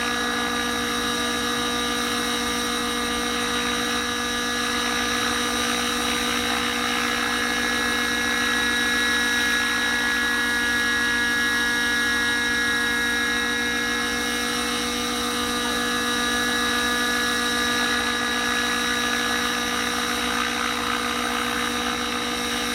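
Small unmanned model helicopter hovering, its engine and rotors running with a steady whine made of several held tones; a higher-pitched hum swells a little in the middle.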